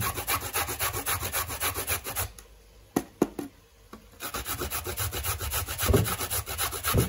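Raw carrot grated on a flat stainless-steel grater: fast, even rasping strokes, about five a second. The grating stops for under two seconds near the middle, with a few light clicks, then starts again.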